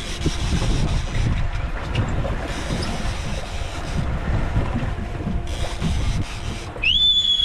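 Wind buffeting the microphone over water and boat noise at sea. Near the end a single loud, high whistle is held for about a second, rising at its start and dropping away at its end.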